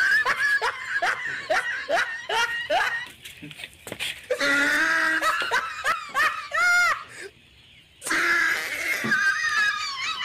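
People laughing hard: a quick run of repeated ha-ha bursts at first, then longer, higher-pitched laughter. It dies down briefly about seven seconds in, then starts up again.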